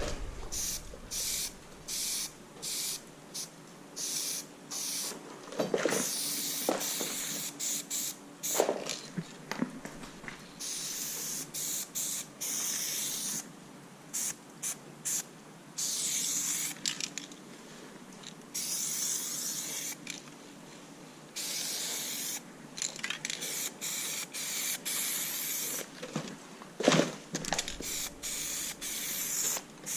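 Aerosol spray paint can hissing in many short bursts and a few longer passes of one to three seconds, with a few knocks in between.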